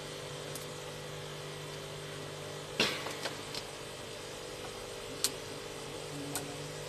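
Steady electrical hum with several sharp clicks and taps from handling the inverter circuit board, the loudest a little under three seconds in.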